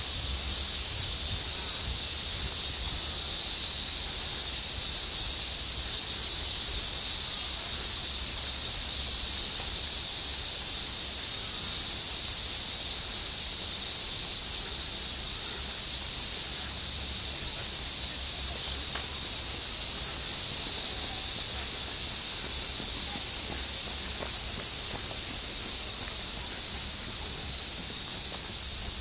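Chorus of cicadas in the park trees, a steady high sizzling drone that holds unbroken throughout.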